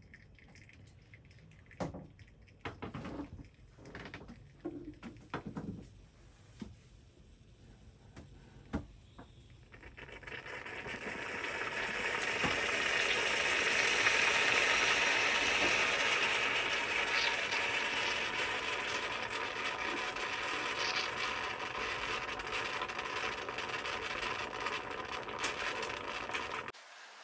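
Two-cup stovetop moka pot on a gas burner brewing coffee. A few faint ticks come first; then, about ten seconds in, a hissing rush sets in as the coffee is forced up and spurts into the cups. It swells for a few seconds, then carries on steadily.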